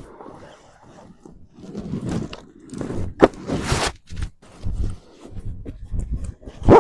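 Irregular rustling, scraping and crunching, like handling or footsteps on a forest floor, with a louder hissing scrape about three and a half seconds in and a louder short thud near the end.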